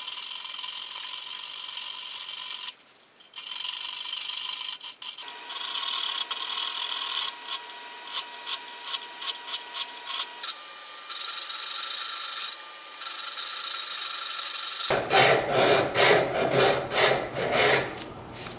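Hand files rasping across a steel knife blade clamped in a vise, cleaning up around the ricasso. Short runs of file strokes come between pauses, the loudest and quickest run near the end.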